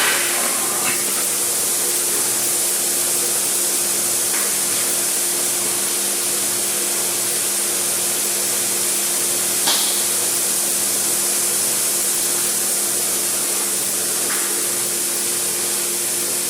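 Automotive EVAP smoke machine running steadily while it pushes smoke into the car's evaporative emission system. It gives an even motor hum under a strong high-pitched hiss, with a few light clicks.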